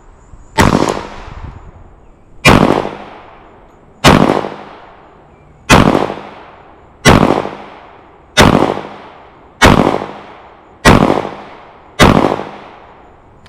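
Nine pistol shots fired one at a time from a Glock 30 .45 ACP, about one to two seconds apart and coming slightly quicker toward the end, each with a trailing echo.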